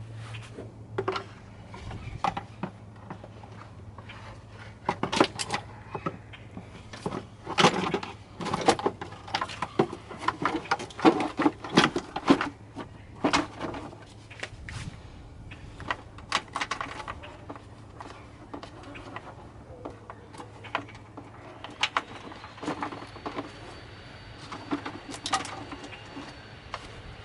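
Hand tools and metal parts clinking and clanking irregularly as parts are handled and refitted, over a steady low hum. A faint high steady tone comes in about three quarters of the way through.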